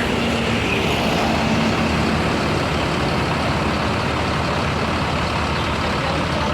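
Large bus engine running steadily by the road, a continuous low drone with traffic noise.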